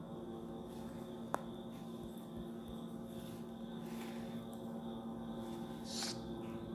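A steady low hum with a few faint overtones and a thin high tone above it, broken by one faint click about a second and a half in and a short soft hiss near the end.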